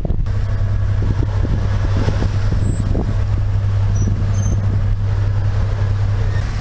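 Fishing vessel's engine running steadily under way: a constant low drone, with a rush of wind and water over it.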